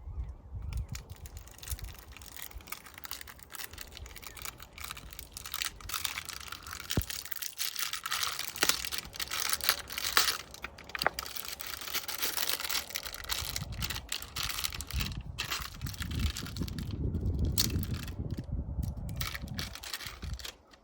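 A knife scoring and stripping the outer jacket of a 1/0 USEB underground service cable, with repeated scraping, tearing and crackling and small clicks. Low rumbling handling noise comes in during the second half.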